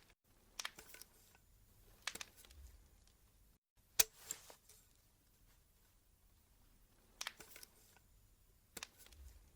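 A handful of faint, sharp clicks or taps, irregularly spaced, about six in all, over a quiet background.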